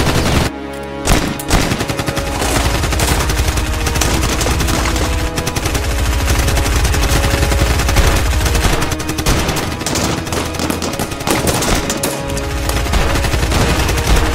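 Rapid automatic gunfire sound effects, a dense stream of shots, over background music.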